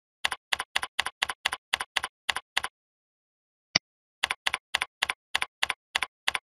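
Computer keyboard keystrokes, typing at a steady pace of about four keys a second in two runs, with a short pause in the middle broken by one single sharper click.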